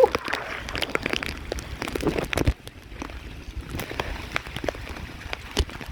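Rain falling during a thunderstorm, with many sharp drop hits close to the microphone over a steady hiss.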